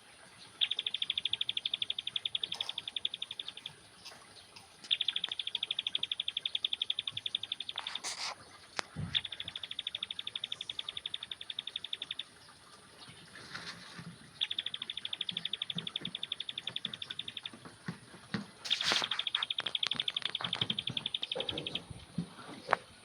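Young ciblek pare (a prinia) giving its rapid chattering trill, the "ngeriwik" call. It sings in five bouts of about three seconds each, separated by short pauses.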